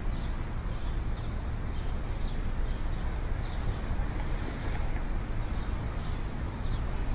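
Steady outdoor background noise with a low rumble, and a faint high chirp repeating about twice a second.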